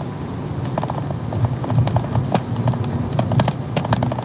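Car cabin noise while driving: a steady low rumble of tyres and engine, with a few light clicks scattered through it.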